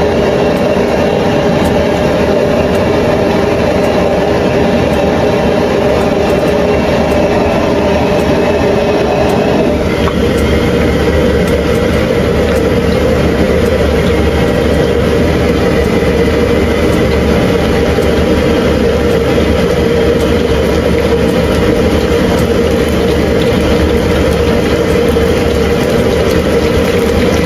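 Batter-coated beef pieces deep-frying in a wok of hot oil, sizzling over the loud, steady roar of a gas wok stove. The roar's tone shifts slightly about ten seconds in.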